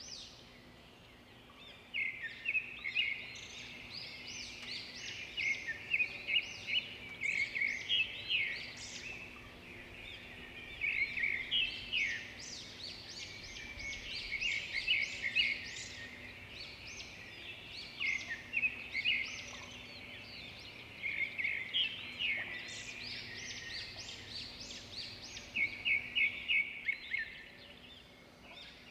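Birds chirping in recurring clusters of quick, high notes, over a faint steady low hum.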